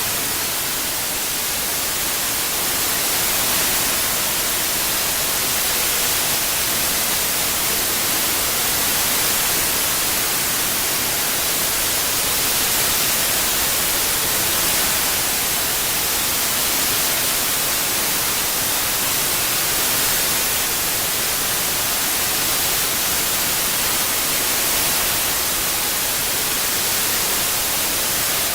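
Synthetic white noise: a steady, even hiss strongest in the high end, with slight slow swells in level.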